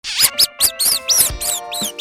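Cartoon mouse squeak sound effects: quick, high-pitched squeaks, each rising and falling, about four or five a second, over background music.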